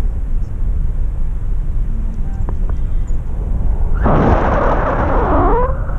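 Wind buffeting the microphone of a selfie-stick camera during a tandem paragliding flight: a steady low rumble. About four seconds in, a louder rush of noise lasts under two seconds, with a sliding tone running through it.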